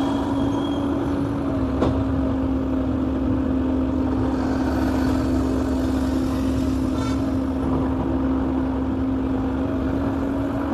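Excavator's diesel engine running at a steady speed, with a short knock about two seconds in.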